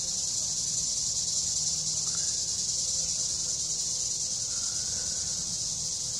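Steady, high-pitched chorus of insects, an even, unbroken buzz.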